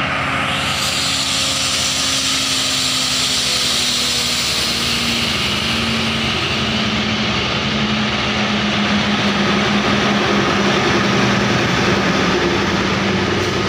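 ZDM3 narrow-gauge diesel-hydraulic locomotive running as it rolls slowly up and past, a steady engine drone with a hiss over it. The engine note drops slightly about five seconds in.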